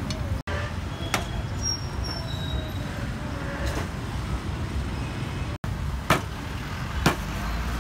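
Street traffic rumbling steadily, with a few sharp single knocks, the clearest near the end about a second apart.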